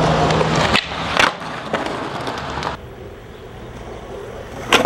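Skateboard wheels rolling loud on concrete, with two sharp board knocks in the first second and a half. The rolling drops off a little under three seconds in, and a sharp clack of the board comes near the end.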